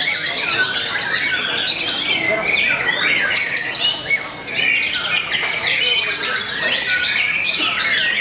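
White-rumped shamas singing in a dense, unbroken chorus of overlapping rapid whistled phrases, chirps and harsh squawks, as at a murai batu singing contest.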